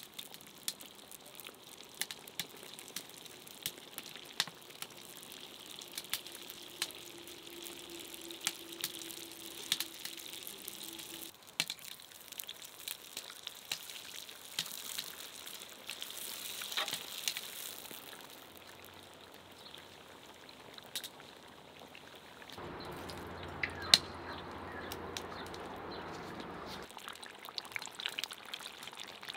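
Food frying in hot oil: a steady sizzle with many scattered crackles and pops. About two-thirds of the way through, a broader rushing noise comes in for about four seconds and stops abruptly, with one sharp pop, the loudest sound, in the middle of it.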